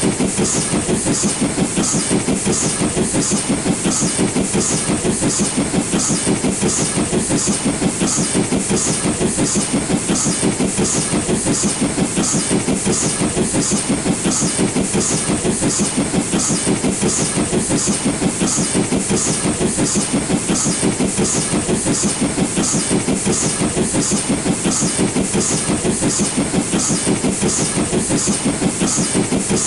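LNER B12 4-6-0 steam locomotive working hard up a gradient while hauling a train: a fast, even beat of exhaust chuffs with a regular hiss on each beat.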